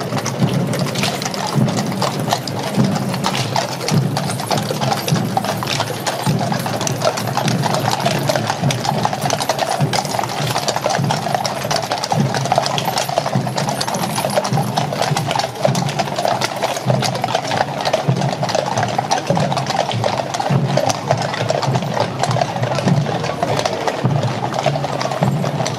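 Hooves of many horses clip-clopping at a walk on a wet tarmac road as a mounted cavalry troop passes close by.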